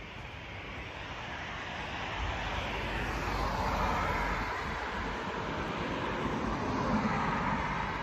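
A vehicle going by, its noise swelling over about four seconds and then easing off slowly.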